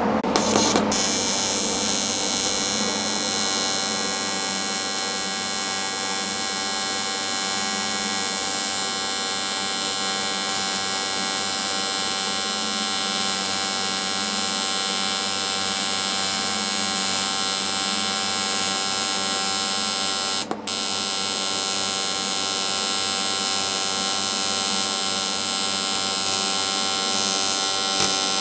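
AC TIG welding arc on an aluminium casting, from an R-Tech TIG 261 AC/DC inverter welder: a loud, steady electric buzz. It starts about a second in, cuts out briefly about twenty seconds in, then resumes.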